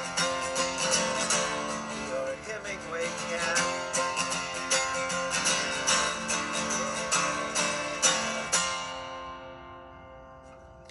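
Acoustic guitar strummed through a song's closing bars; a last chord is struck about eight and a half seconds in and rings out, fading away.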